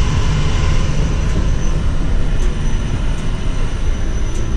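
Steady rumble of a passenger train coach rolling along the track, heard from inside the car.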